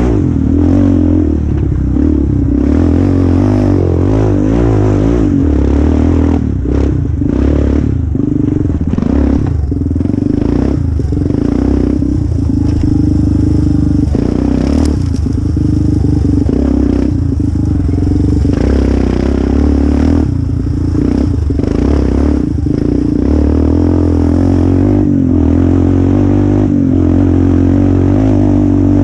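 Yamaha Raptor quad's single-cylinder four-stroke engine heard from on board at race pace, revving up and down with many short throttle-offs, while the quad clatters and scrapes over rough trail.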